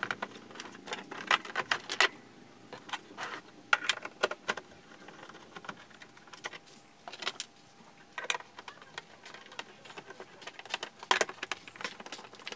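Irregular clicks and light metallic knocks of tools and small parts being handled while an LED TV is being opened up, coming in small clusters with quiet gaps between.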